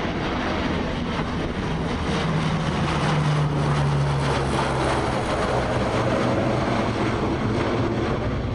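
Lockheed C-130H Hercules passing low overhead, the loud sound of its four Allison T56 turboprop engines and propellers. A steady propeller tone grows loudest about three to four seconds in, then drops slightly in pitch as the aircraft goes past.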